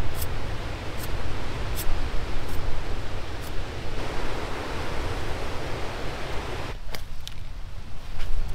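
Steady rushing noise of ocean surf and wind, with a few faint sharp ticks; near the end it drops abruptly to a quieter, thinner hiss.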